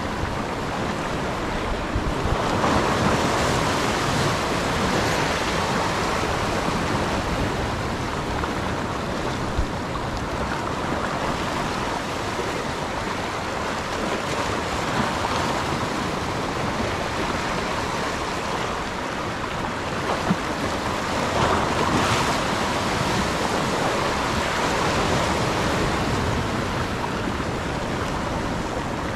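Sea surf washing and breaking over shoreline rocks: a steady rushing wash that swells louder as bigger waves break, about three seconds in and again after about twenty seconds.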